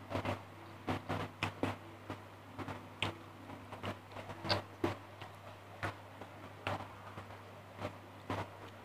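Close-up mouth sounds of eating fried fish and rice by hand: wet lip smacks and chewing clicks, irregular, a few a second. A steady low hum runs underneath.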